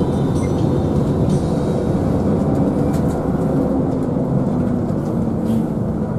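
Steady engine and road noise heard from inside the cabin of a moving coach bus, with a low, even drone.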